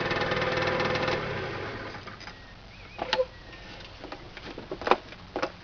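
Gilera NRG mc2 scooter's 50cc two-stroke engine running, then dying away over about a second. After that come a few sharp clicks and knocks, the loudest near the end.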